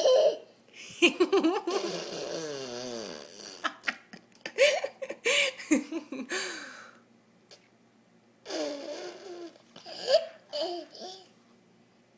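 Toddler laughing and giggling with bits of babbling, in three bursts: a short laugh at the start, a long wavering run of giggles over the next several seconds, and another burst near the end.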